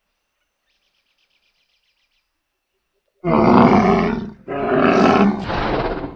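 Big cat roaring, twice: two loud, rough roars starting about three seconds in, the second one longer. A faint rapid buzz comes shortly before them.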